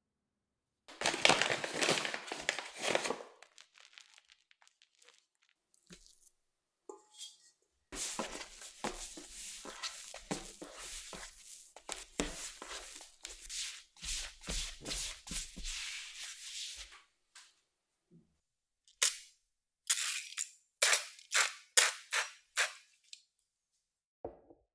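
Sticky yeast dough for stollen being handled by hand. It is pulled and scraped off a stand mixer's dough hook and out of the steel bowl, then kneaded on a marble counter with continuous handling noise and low thumps. Near the end comes a run of short, sharp strokes.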